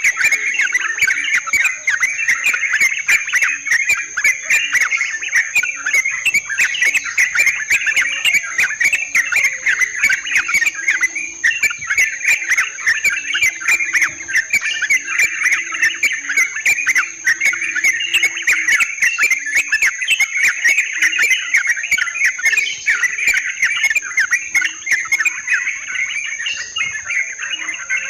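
Yellow-vented bulbuls (trucukan) chattering continuously in a dense, bubbling run of calls, over a steady high-pitched insect drone.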